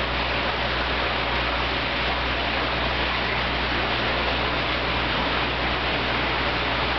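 Fish tank's aeration and filter pump running: a steady rushing noise with a low hum underneath, with no distinct knocks or bites standing out.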